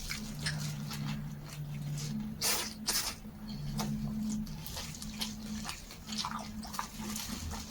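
A person chewing and biting a soft rolled pancake filled with potato shreds and vermicelli, with irregular wet clicking mouth sounds. Underneath is a low hum that comes and goes.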